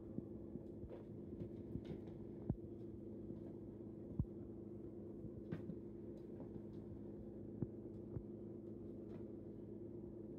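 Kittens playing on a hardwood floor: scattered light taps and a few sharper knocks from paws and pounces, over a steady low hum.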